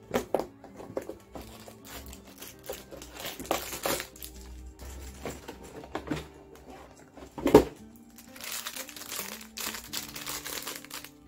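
Handling noise from an advent calendar: the cardboard door being opened, with sharp clicks and rustles and one loud knock about halfway through, then a small plastic bag of Lego pieces crinkling in the hands near the end. Background music with held notes plays underneath.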